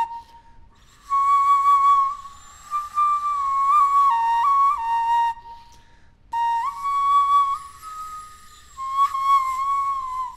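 A Maya flute playing a clear, high tone that steps between a few close notes, in two short phrases with a pause of about a second between them.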